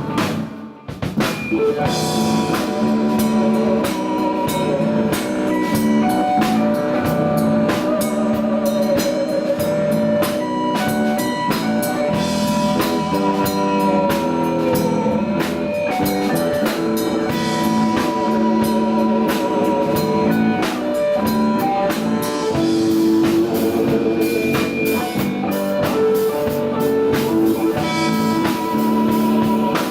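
Live blues-rock band playing: guitar lines over a drum kit, with a short drop in the sound about half a second in before the music carries on.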